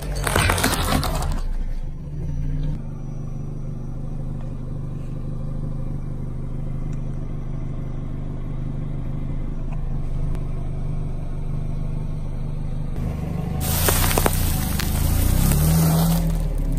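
Car tyre crushing a large egg, the shell crunching and cracking in the first second or so. Then a low, steady engine sound as the car rolls slowly on. Near the end the tyre crushes a plastic-wrapped package with a loud crackling crunch lasting a few seconds.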